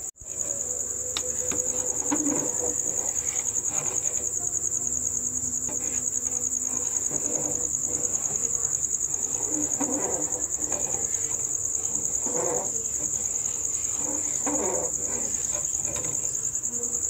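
Crickets trilling, a constant high, finely pulsing chirr that carries steadily throughout.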